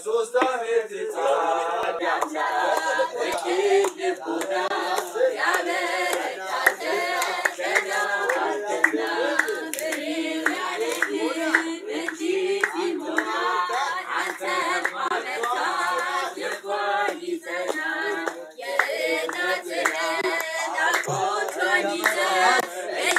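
A group of voices singing a religious chant together, with hand clapping throughout.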